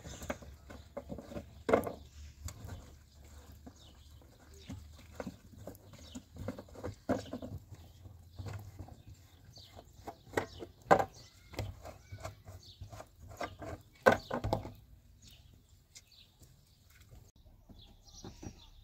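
Plastic water jerrycans being handled, knocking and clattering irregularly, with a few louder knocks, over a low steady hum that stops about three-quarters of the way through.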